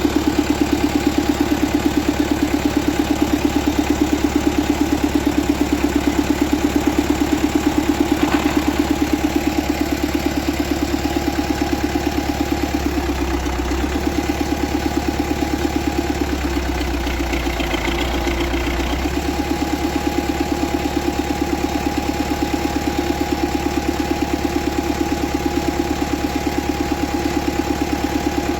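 Tractor diesel engine running at a steady idle with an even, rapid pulse. A thin steady whine rides along with it and drops out for a few seconds about halfway through.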